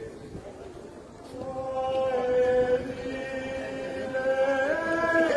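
Small choir singing a slow chant in long held notes. After a short lull near the start, the voices come back in and hold their notes, moving in steps from one to the next.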